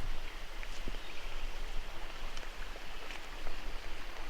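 Steady rush of flowing water from a nearby creek, with a few faint light ticks and crackles over it.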